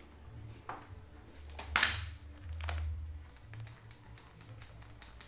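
Handling noise: scattered light taps and clicks, with one louder sharp knock a little under two seconds in, over a low rumble.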